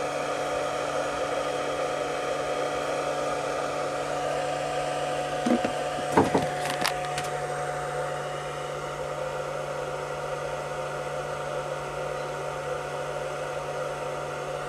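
A running 500 W pure sine wave inverter makes a steady electrical hum and whir. A few brief knocks come about halfway through.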